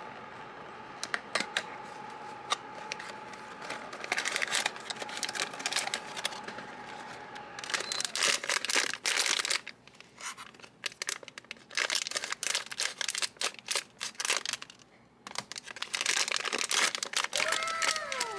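Blind box packaging being opened by hand: plastic wrapping and foil bags torn and crinkled, with sharp clicks and taps as the box and pieces are handled.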